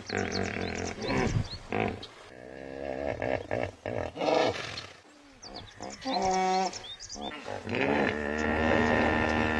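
Hippopotamus calling: a series of deep, pitched grunts and honking roars, one after another with short pauses.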